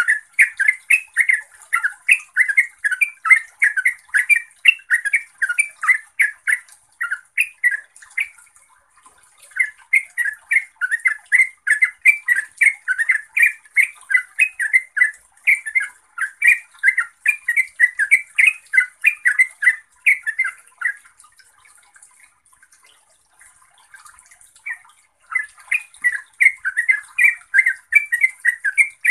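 Yellow-vented bulbul singing in long, rapid runs of chattering notes, the fast continuous delivery that bird-keepers call ngeropel. The song breaks off briefly about eight seconds in, then falls almost silent for about four seconds past the two-thirds mark before starting again.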